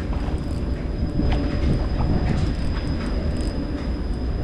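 Steady low engine rumble with a thin, steady high-pitched whine over it and a few light clicks.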